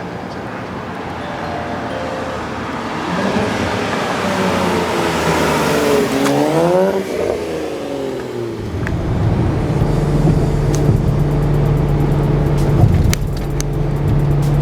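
Tuned BMW E90 335i's turbocharged inline-six through a Cobb cat-back exhaust, accelerating: the exhaust note climbs, peaks about six to seven seconds in and falls away, then settles into a steadier drone.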